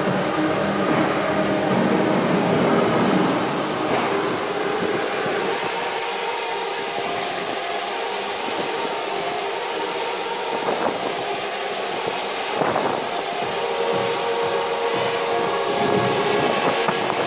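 Parrot Bebop 2 quadcopter drones whirring in flight: a steady buzz of spinning propellers with several pitches that shift as the drones manoeuvre.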